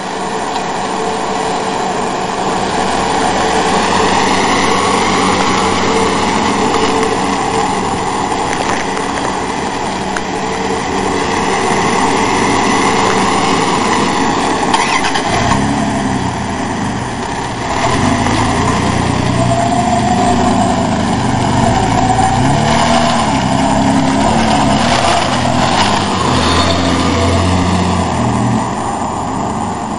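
Car driving: steady engine and road noise heard from inside a moving car, with a heavier, deeper engine sound coming in about halfway through.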